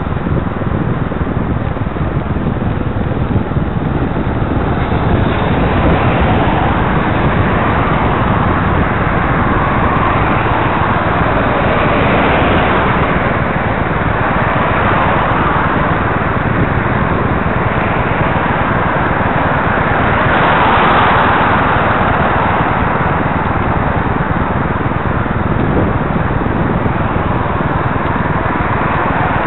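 Traffic on a wet road alongside: steady tyre and engine noise that swells as vehicles pass, over a constant low rumble.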